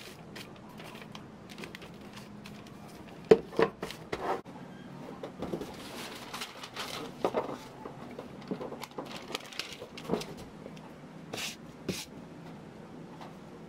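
Wrapping paper rustling and crinkling as hands fold it around a painted canvas, with scattered knocks and taps of the canvas and hands on a wooden tabletop. The loudest knocks come about three to four seconds in.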